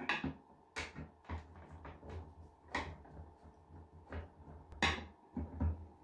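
Frosted plastic cover of a round ceiling light being pressed back onto its fitting and handled with a screwdriver: irregular sharp plastic clicks and knocks, a few loud ones among lighter taps.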